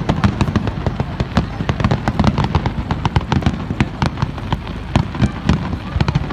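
Fireworks going off in a dense, rapid barrage: many sharp bangs and crackles each second over a heavy low rumble of booms.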